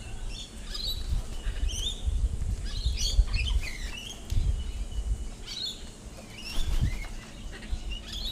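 A flock of wild birds calling around the feeding spot: many short, quick chirps and squawks overlapping, busiest in the middle, over a low rumble of wind or handling noise.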